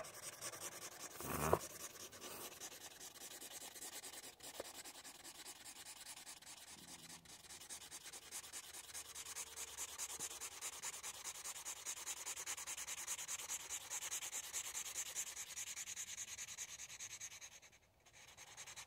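Dry chisel-tip Sharpie marker scrubbed rapidly back and forth on paper: a fast, faint, scratchy rubbing that gets louder about eight seconds in and breaks off briefly near the end.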